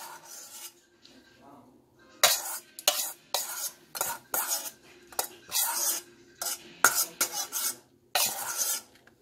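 A metal spoon scraping and clinking against a stainless steel mixing bowl in a run of short, irregular strokes, scooping out the last of the egg salad.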